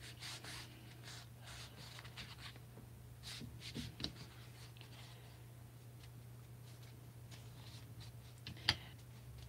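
Faint rubbing and light tapping of hands rolling and handling a strip of craft foam on a glass tabletop, with one sharper click near the end, over a steady low electrical hum.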